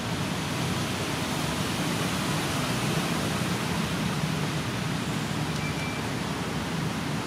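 Steady outdoor background noise: a constant rushing hiss and low rumble with no distinct events.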